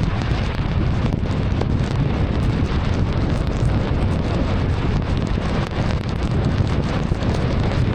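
Heavy rain falling on a moving car, mixed with steady tyre and road noise on the wet road, a loud, even rush with a low rumble and many small ticks of drops.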